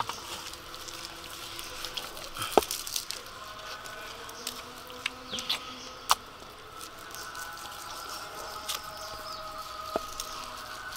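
Knife slicing through raw chicken breast on a wooden chopping board: soft, wet cutting noises, with a few sharp knocks as the blade meets the board.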